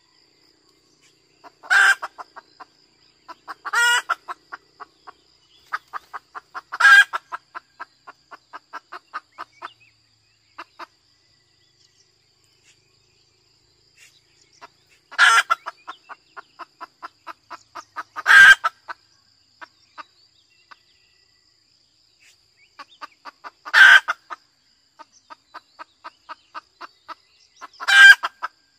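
Junglefowl hen giving the cackling 'ngekek' mating-solicitation call: seven loud squawks, each followed by a quick run of short clucks, about five a second, that trails off.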